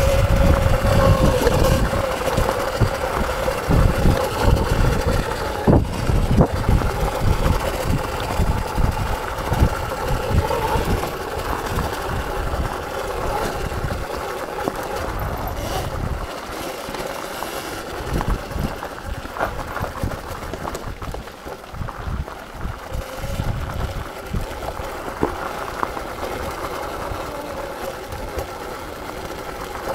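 Electric dirt bike riding on a trail: a thin motor whine that rises and falls with the throttle under heavy wind buffeting on the microphone, with a few sharp knocks from the bike over rough ground.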